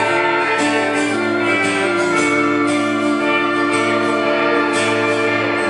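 Live band playing an instrumental passage between sung lines, with sustained chords and held notes over a steady beat.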